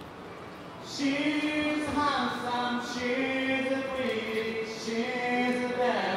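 A man's voice singing slow, long-held notes through the stage PA, starting about a second in, with no instruments clearly heard.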